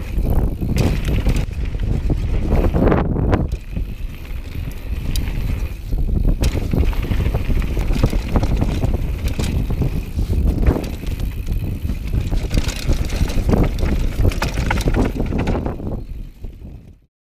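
Downhill mountain bike rolling fast over a gravel trail: tyres crunching and the bike rattling over stones, with wind buffeting the microphone. The sound fades out near the end.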